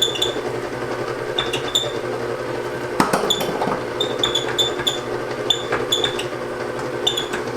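Electric mixer running on low, its motor humming steadily, with short high squeaks every half second or so: the mixer needs oiling. A sharp knock about three seconds in.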